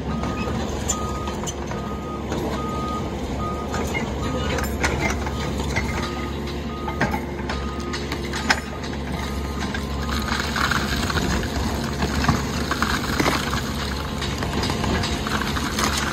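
Diesel engine of a Volvo EC60E compact excavator running steadily, with a warning alarm beeping about twice a second through the first half, stopping about nine seconds in. Later there is crunching and clattering of broken concrete and rubble.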